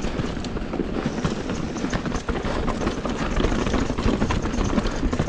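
Mountain bike descending a loose, rocky dirt trail: knobby tyres crunching over gravel and rocks, with a constant clatter of small knocks from the bike rattling over the rough ground.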